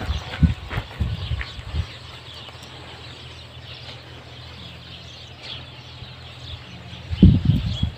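Outdoor ambience: low rumbling bursts in the first two seconds and again near the end, a steady low hum between, and faint bird chirps.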